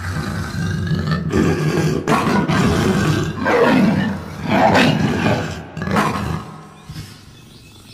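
Big cat roaring: a run of deep roars, loudest in the middle, dying down near the end.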